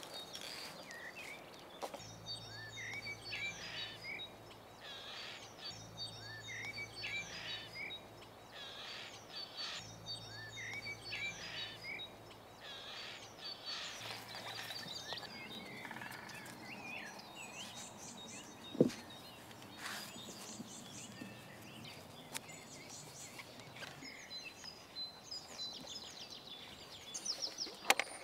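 Birds singing, short chirping phrases repeated every second or two, over a faint low hum that stops about halfway through. One sharp click sounds about two-thirds of the way in.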